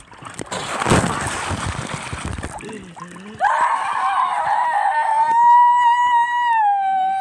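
Water splashing as a boy drops into a pool, then, about three seconds in, a long, high-pitched scream from him held at a steady pitch for about four seconds.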